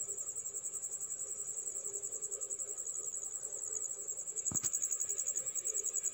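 Cricket chirping steadily in the background: a high, rapidly and evenly pulsing trill. A single sharp click about four and a half seconds in.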